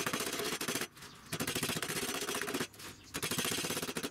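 Wooden meat mallet pounding a butterflied pork neck through a plastic bag on a plastic cutting board, flattening the meat: rapid blows in three runs, with short breaks about a second in and nearly three seconds in.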